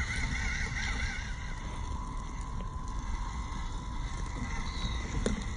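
The electric drive motor and gearbox of a WPL B36 6x6 RC truck whining as it crawls over wood chips and leaves, the pitch wavering with the throttle and rising briefly twice near the end, over a steady low rumble.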